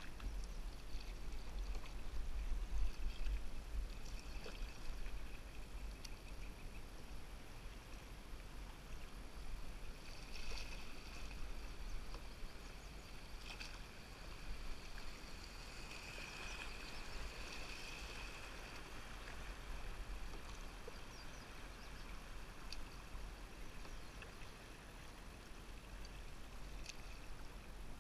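A canoe being paddled down a fast river: steady rushing and lapping of the current around the hull, with a few sharp paddle knocks and splashes over a continuous low rumble.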